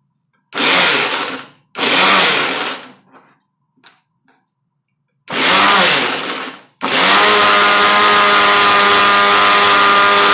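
Electric mixer grinder (mixie) grinding chopped pineapple and cinnamon without water into a purée for pineapple jam. It pulses in three short bursts, then runs continuously from about two-thirds of the way in with a steady motor whine.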